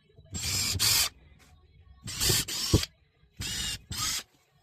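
Power drill running in several short bursts of about a second each, boring pilot holes into the ends of wooden hive locking bars so that the nails won't split the wood.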